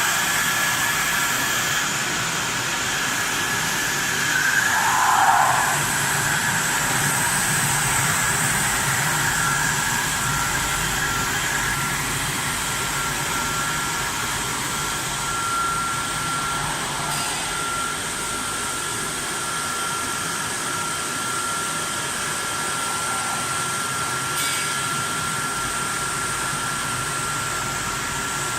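Vertical flat glass washing machine running: a steady whirring machine noise with a high, steady whine held over it, swelling briefly about five seconds in.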